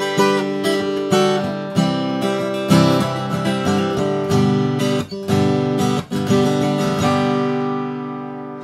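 Acoustic guitar played solo, a run of strummed and picked chords with a new attack every half second to a second, ending about seven seconds in on a chord left to ring and fade out.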